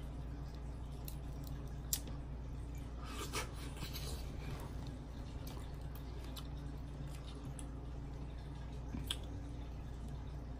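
Crab leg shells cracking and crab meat being pulled apart by hand, heard as scattered sharp clicks and a short crackle, with the sharpest snaps about two seconds in and near the end, over a steady low hum.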